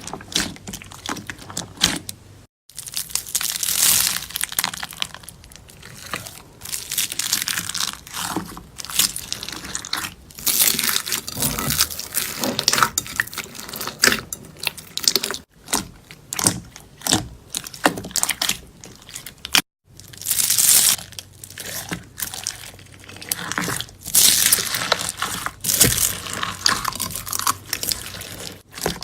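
Slime being pressed, poked and stretched by hand, giving dense runs of crackling, popping clicks that rise and fall in surges. The sound breaks off suddenly a few times.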